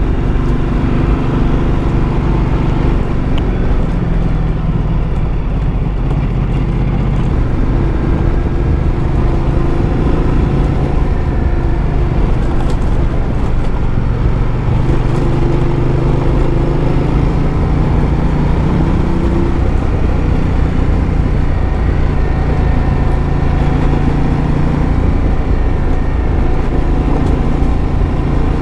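Ducati Multistrada motorcycle engine running steadily while riding a gravel road, its pitch drifting a little up and down with the throttle, mixed with wind and tyre noise.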